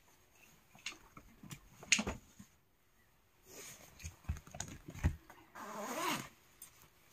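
Domestic cat meowing once, an arching call near the end, amid scattered knocks and clicks, the loudest about two seconds in.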